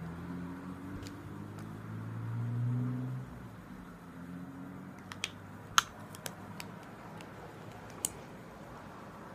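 A low drone that fades out about three seconds in, then a handful of short sharp clicks and taps from lipstick tubes and caps being handled, the loudest about six seconds in.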